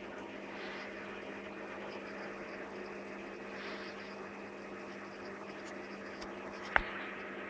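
Steady hum with a water-like hiss from a 220-litre marine reef aquarium's pumps and water circulation running. One sharp click near the end.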